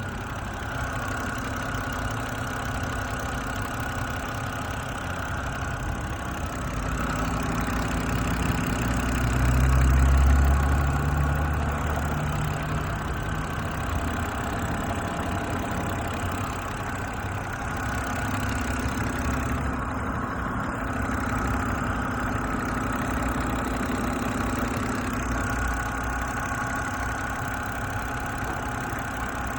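BMW N52 straight-six engine idling with a knock, the fault the video is posted to show. It swells louder briefly about ten seconds in, then settles back to a steady idle.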